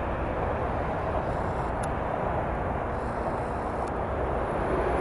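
Steady rumble of an approaching container freight train hauled by a Pesa Dragon2 electric locomotive, still some way off. A couple of faint clicks sound over it.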